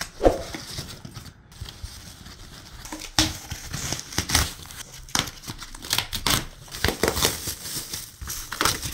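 Thin foam packing sheets and plastic wrap rustling and crinkling as they are pulled off a bike frame, in irregular scrunches with short sharp crackles, quieter for a moment about a second in.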